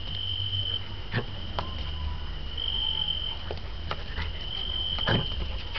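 An insect trilling in short bursts of a steady high tone, cricket-like, with a few scattered light taps or clicks in between.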